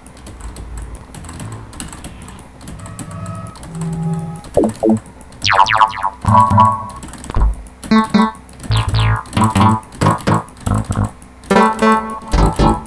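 Harmless software synthesizer in FL Studio auditioning one preset after another. Short synth notes and tones change in timbre every second or so, some with falling pitch sweeps and deep bass hits, under light clicking. Quiet at first, louder from about four seconds in.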